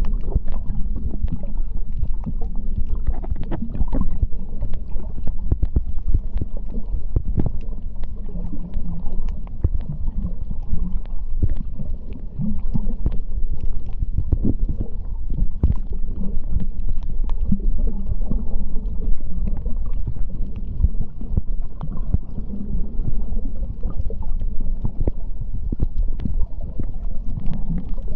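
Underwater sound picked up by a diving camera on a coral reef: a steady, muffled low rumble of moving water with frequent faint clicks and crackles throughout.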